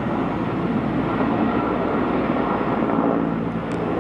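Steady engine drone with a continuous rumbling noise and no clear change.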